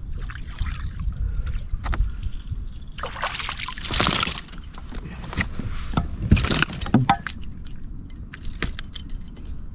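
A caught largemouth bass thrashing while it is handled, giving bursts of splashing and flapping with a jangling rattle of lure hooks and several sharp clicks. The two loudest bursts come about three seconds in and again about six seconds in.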